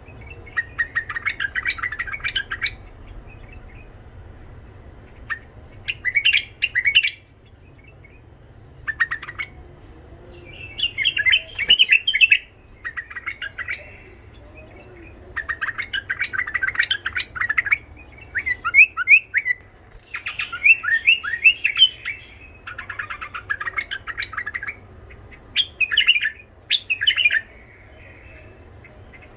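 A caged white-eared bulbul singing its rough-voiced song: about a dozen short phrases of rapid notes, each a second or two long, with brief pauses between them.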